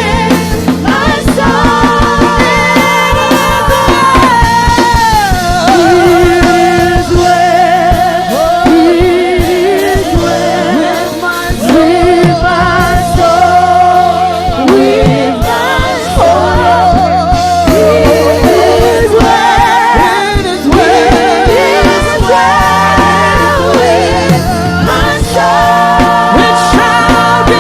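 Gospel song: a voice singing a melody with vibrato over a steady live band accompaniment with a regular drumbeat.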